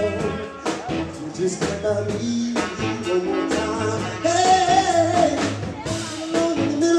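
Live soul band playing, with electric guitar, bass guitar and a drum kit keeping a steady beat, and a wavering melody line over the top.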